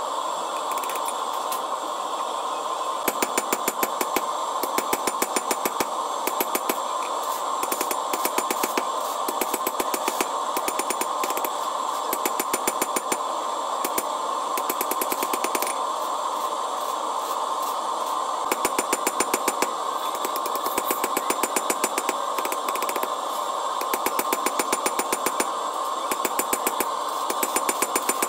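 Hand hammer striking a red-hot steel bar on an anvil, drawing out stock for a hammer eye drift: fast runs of ringing blows, several a second, broken by short pauses. A steady hum runs underneath.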